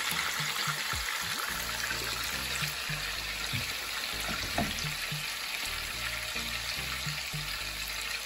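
Fish pieces frying in hot oil in a frying pan, a steady sizzle. Background music with a repeating bass line plays underneath.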